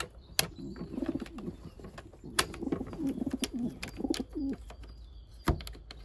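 Pigeons cooing in two low, throbbing runs, with several sharp clicks from the metal latch and frame of a woven pigeon transport basket being shut.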